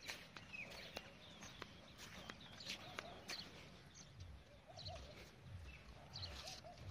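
Faint open-air ambience of birds calling: short chirps, and from about halfway a low call of a few notes repeating every second or two, with scattered light knocks in the first half.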